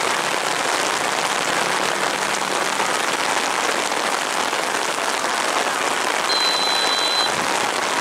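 Heavy rain falling, a steady dense hiss of pattering drops. About six seconds in, a referee's whistle sounds one steady high blast lasting about a second.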